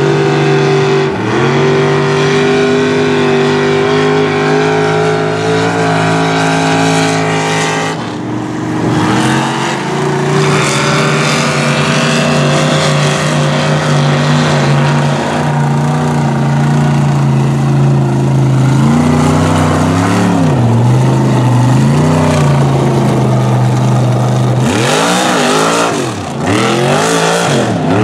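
Mud truck's engine running hard at high revs as it churns through a mud pit, its pitch mostly held high and steady. Near the end the revs drop and climb again several times in quick swoops.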